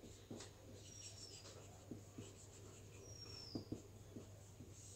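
Faint sound of a marker pen writing on a whiteboard: soft taps and scratches of the tip as a word is written, with two short high squeaks that fall slightly in pitch, about a second in and just past three seconds. A steady low hum runs underneath.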